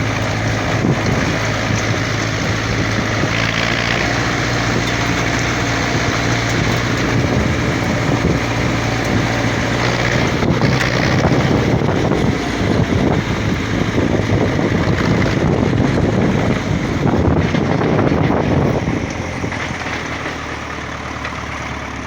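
Engine of a heavy work machine running steadily. Its note shifts about twelve seconds in and again near the end, where it gets a little quieter.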